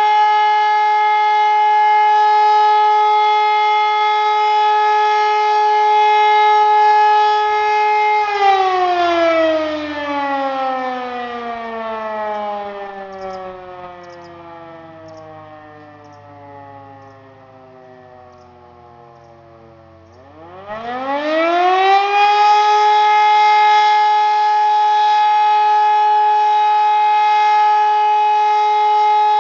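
E57 electromechanical civil-defence siren sounding the fire-alarm signal in a test. A steady loud wail for about the first eight seconds, then it winds down with slowly falling pitch and fading volume for about twelve seconds, then spins back up to full pitch and holds steady again: the end of one blast and the start of the next.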